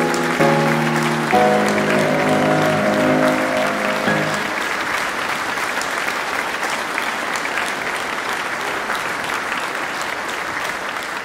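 Audience applauding, with a short musical phrase of held notes over it that ends about four seconds in; the clapping carries on alone after that.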